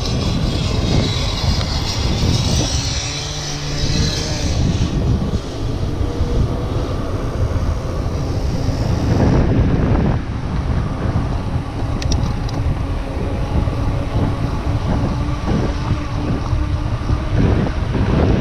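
Wind noise on the microphone and the rolling tyres of a mountain bike riding on asphalt, a steady rushing rumble.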